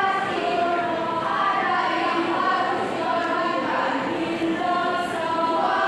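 A choir of voices singing a slow melody together in long held notes.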